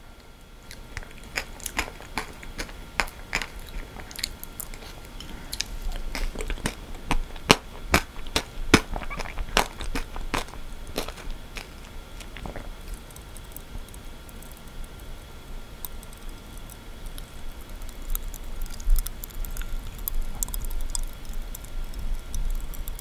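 Popping candy in a mouthful of Baskin-Robbins Shooting Star ice cream crackling and snapping in the mouth as it is chewed. The sharp pops come thick for the first ten seconds or so, then thin out to fainter, higher crackles.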